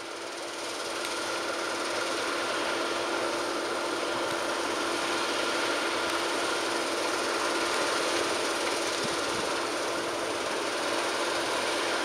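Claas Lexion 660 combine harvester working, threshing and unloading grain on the move into a trailer pulled alongside by a John Deere 6195R tractor: a steady machinery drone with a constant whine, growing slightly louder in the first couple of seconds and then holding steady.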